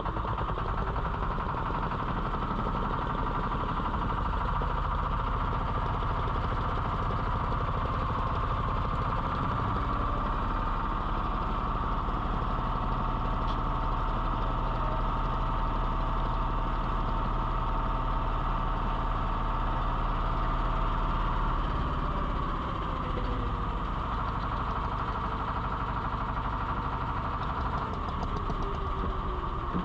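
Small fishing boat's engine running steadily under way. A little past two-thirds of the way in it drops slightly in level and its pitch slides down.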